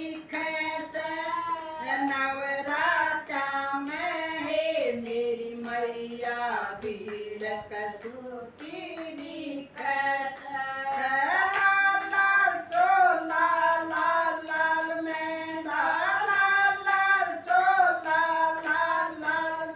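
Women's voices singing a Hindi devotional bhajan together, unaccompanied, with hand claps keeping time. The singing thins out for a moment around the middle, then comes back in fuller.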